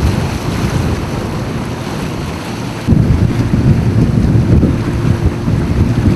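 Heavy wind buffeting the microphone aboard a moving small boat on open water, a loud low rumble that turns abruptly louder about three seconds in, with a faint steady hum underneath in the second half.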